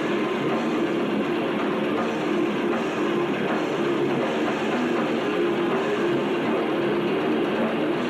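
Death metal band playing live: heavily distorted electric guitars and bass in a dense, unbroken wall of sound, with the chords shifting every so often.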